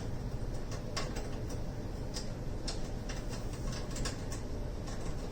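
Irregular light clicks and taps, a few a second, from network cables and connectors being handled and plugged in, over a steady low hum.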